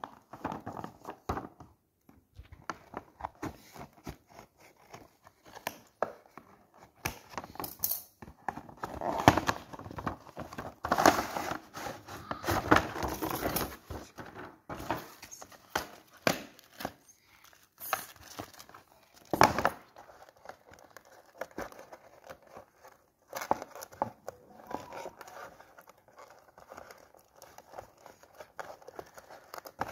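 A boxed doll being unpacked by hand: the cardboard box and its plastic packaging rustle, crinkle and tear in irregular bursts, with sharp clicks and taps, busiest about a third of the way in.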